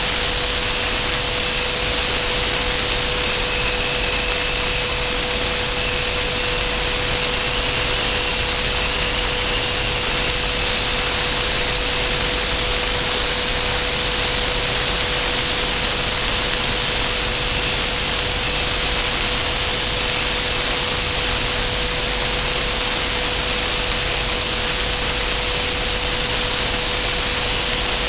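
Machinery running steadily: a loud, high-pitched whine over a constant lower hum and hiss.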